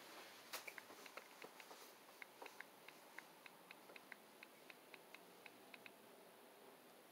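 Faint typing on a phone's touchscreen keyboard: a run of short, light taps, about three or four a second, that stops about six seconds in.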